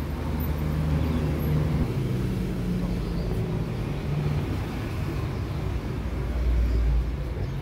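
City street traffic: cars going by on the road make a steady low rumble, with one passing louder near the end.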